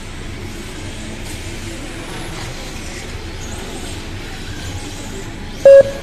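RC rally cars running on the race track, a steady noise, with one short, loud beep near the end.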